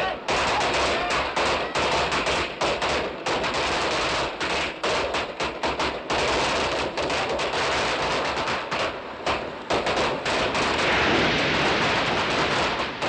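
Strings of Chinese firecrackers going off in a dense, continuous crackle of rapid bangs.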